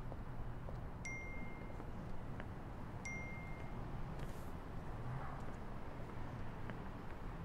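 Phone text-message notification chime sounding twice, about two seconds apart, each a short bright ding that rings out briefly, over a low steady hum.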